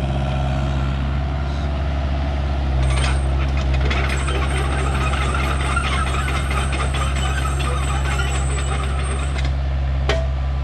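A heavy machine's engine running steadily, with rattling and clattering on top from about three seconds in until near the end.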